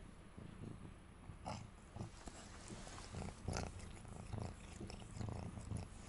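A cat shifting about on towels close to the microphone: faint rustling and soft low thumps, with a few light clicks.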